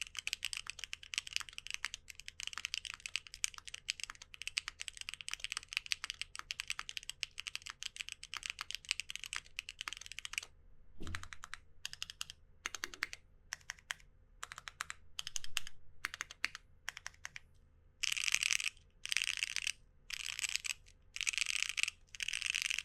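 Typing on a mechanical keyboard fitted with WEKT XCJZ Green Mustard Plus linear switches (PP top housing, POM stem), with a clacky, high-pitched sound. There is fast continuous typing, then a pause and a few slower single key presses. Near the end come about five short bursts of rapid keystrokes, each about a second long.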